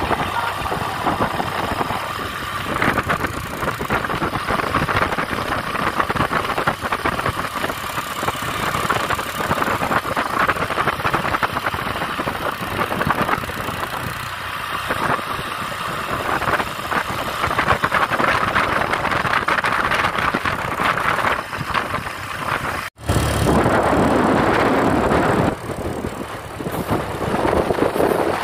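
Road traffic: vehicle engines running steadily. There is a sudden brief break about four-fifths of the way through, and after it the engine noise is louder.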